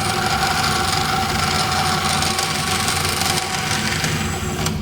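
Vertical bandsaw cutting through metal flat stock: a steady hiss of the blade in the cut over the running motor's hum. The cutting hiss stops abruptly near the end as the blade finishes the cut, and the saw keeps running.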